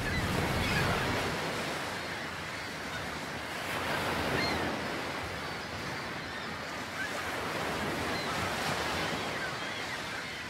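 Small waves washing in over a shallow, rocky shoreline. The surf swells and eases roughly every four seconds.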